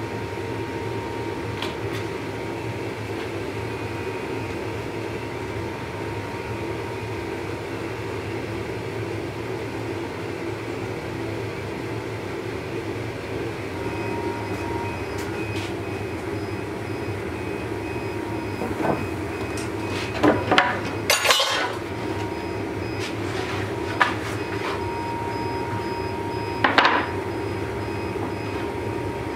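Gas torch burner running with a steady rushing noise while heating a steel blade for hardening, with a few sharp metallic clanks from the blade and tongs about two-thirds through and again near the end.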